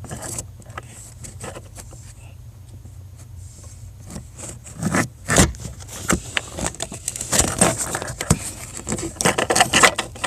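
Plastic clicking, rattling and scraping as a Honda Accord instrument cluster is worked loose and pulled out of the dashboard, busier in the second half, over a low steady hum.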